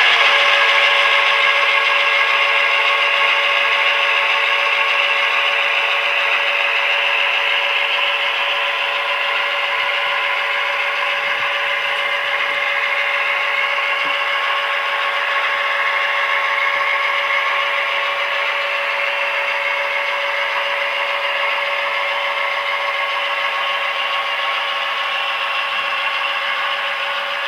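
Model diesel locomotive's sound decoder playing a steady diesel engine sound through its small speaker, mixed with the whir of the running model, slowly fading as it pulls away. The engine runs on evenly with no dynamic brakes cutting in, the sign that the decoder fix has worked.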